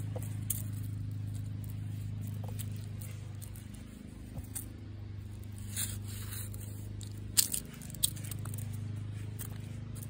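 Footsteps scuffing and clicking on a leaf-strewn paved path, irregular, with the sharpest clicks about seven and a half and eight seconds in, over a steady low hum.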